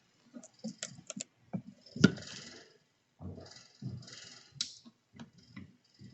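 Scattered light clicks and taps of small tools being handled on a repair bench, with a few short hisses about two, four and six seconds in.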